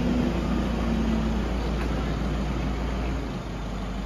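Steady low rumble of a motor vehicle engine idling, easing slightly a little past three seconds in.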